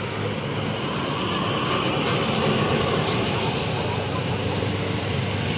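Steady rumble of vehicle engines and road noise, with no horn sounding.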